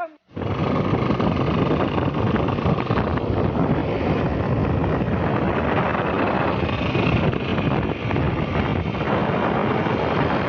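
Loud, steady rushing noise of wind buffeting the microphone, with vehicle noise beneath it, starting just after a cut.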